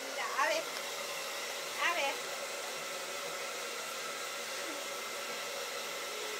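Hair dryer running steadily. Two short, high-pitched sounds that fall in pitch rise above it, one near the start and one about two seconds in.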